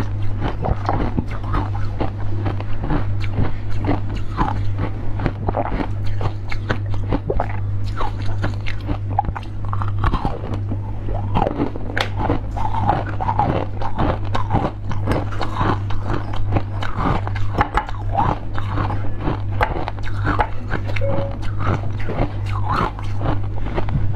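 Close-miked biting and chewing of candied fruit, a dense run of small, crisp, wet mouth clicks, over a steady low hum.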